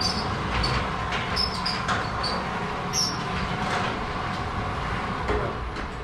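Sectional garage door closing under its electric opener in answer to the wireless keypad code. The opener's motor runs steadily while the door's rollers rattle along the steel tracks, with short high squeaks every half second or so.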